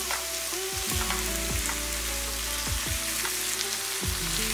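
Tomato-onion masala frying in a pan, with a steady sizzle as raw banana slices are set into it.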